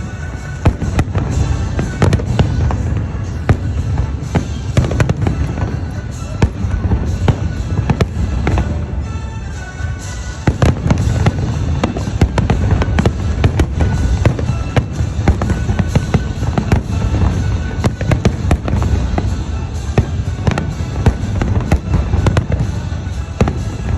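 Fireworks going off in rapid succession: many sharp bangs and crackles a second over a low rumble, easing briefly about ten seconds in.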